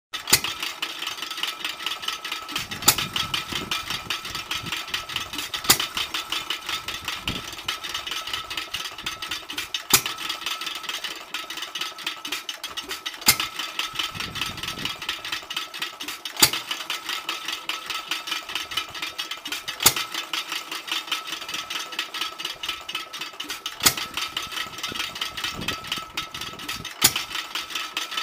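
1916 Fairbanks Morse 1.5 hp headless hit-and-miss stationary engine running free with no load: a sharp firing bang every three to four seconds, with fast clicking and rattling as it coasts between firings.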